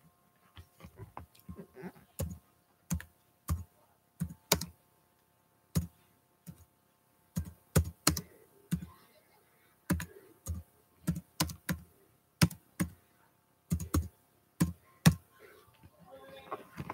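Typing on a computer keyboard: irregular key clicks, often two or three close together, then short pauses.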